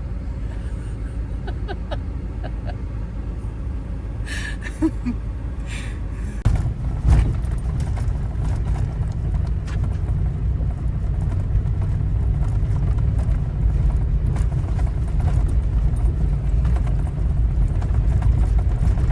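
Wind buffeting the microphone: a loud, fluttering low rumble that grows louder about six and a half seconds in.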